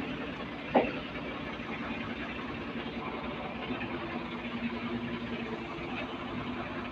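Engine of construction machinery running steadily at idle, with one brief sharp sound just under a second in.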